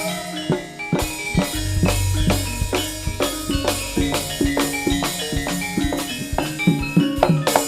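Live Javanese jaranan ensemble music: quick, dense strikes of drums and ringing pitched metal percussion, with a deep low note sounding for about two seconds near the start.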